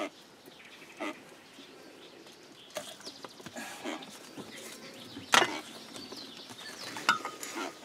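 Handling noises from unhooking a blue catfish and laying it in a landing net in a small boat: scattered clicks and rustles, with one sharp knock about five seconds in.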